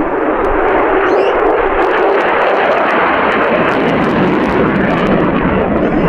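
Fighter jet's engine as it flies past overhead: a loud, steady rushing noise, its low rumble growing stronger about four seconds in.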